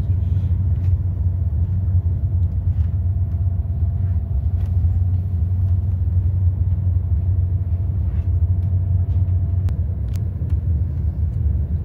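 Steady low rumble inside the passenger cabin of an ICE high-speed train running at speed, with a faint steady tone above it and a few light clicks.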